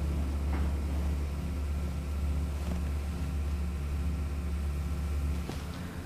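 A steady low mechanical hum that cuts off about five and a half seconds in, with faint soft strokes of a watercolor brush on paper.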